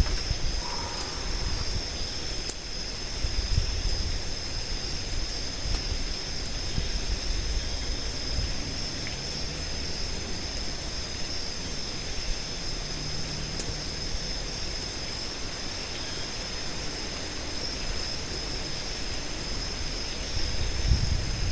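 Strong wind gusting and rumbling on the microphone, over a steady high-pitched drone.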